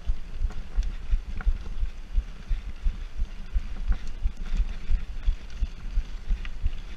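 Specialized mountain bike rolling over a rough dirt track, heard on the rider's camera: a constant jumble of low thuds and jolts from the bumps, with a few light rattles and clicks of the bike.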